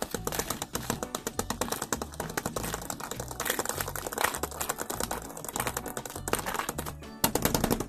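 Rapid, dense clicking like keyboard typing over background music with a repeating bass line.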